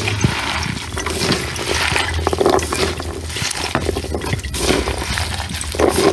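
Wet squishing of pomegranate arils crushed and kneaded by gloved hands in a plastic colander, with many small crackles as the arils burst and juice is pressed out.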